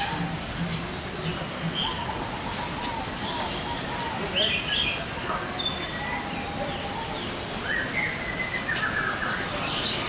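Several birds chirping and calling in short, scattered notes over a steady background hiss.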